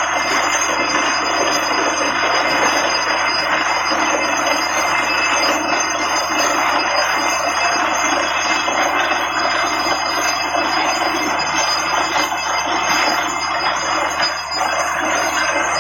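Borewell drilling rig running steadily: a loud, continuous mechanical grinding with thin, high-pitched ringing tones over it.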